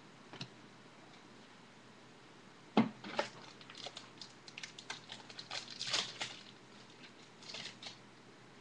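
Trading cards and their packaging being handled on a table: a single knock about three seconds in, then a run of light clicks and rustles, with a last brief rustle near the end.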